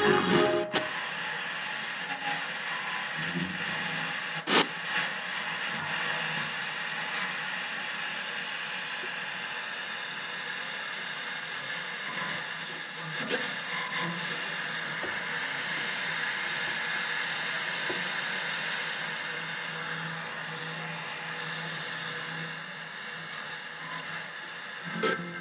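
ITT Touring 120 radio cassette recorder giving out a steady static hiss from its speakers as the tuning knob is turned between stations, with a couple of brief clicks along the way.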